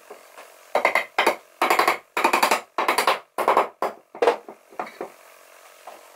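Pine wood being worked with a tool: a quick run of about ten short scraping strokes, between about one and five seconds in.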